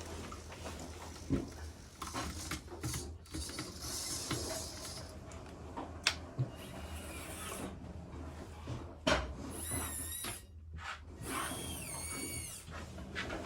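Small electric motors of Siku Control 32 radio-controlled 1:32 model machines whirring as they are driven, with a few sharp clicks and wavering high whines near the end.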